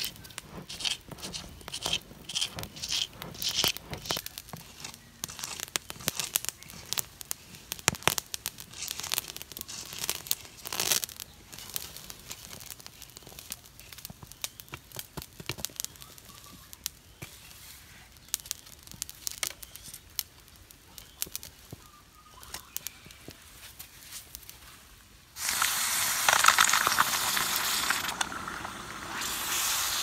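Charcoal crackling and scraping with scattered sharp ticks as a stick rakes the glowing embers at the mouth of a clay furnace. Near the end a sudden loud hiss: hot metal quenched in a bowl of water, sizzling.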